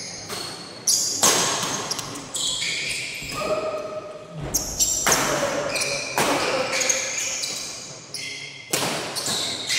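A fast badminton doubles rally: about ten sharp racket-on-shuttlecock hits, roughly one every second, each ringing out in the large hall. Short squeaks sound between some of the hits.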